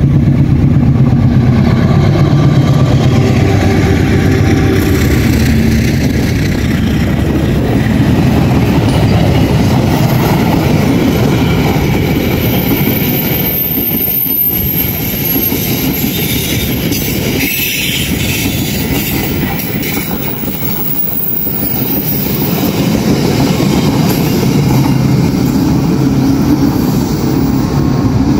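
Passenger train passing close by. A steady low hum from the locomotive's engine comes first, then the carriages' wheels roll on the rails, with a thin high squeal about halfway through.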